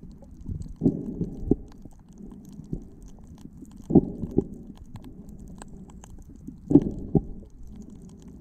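Muffled underwater water noise picked up by a submerged camera: a low rumble with louder surges about every three seconds.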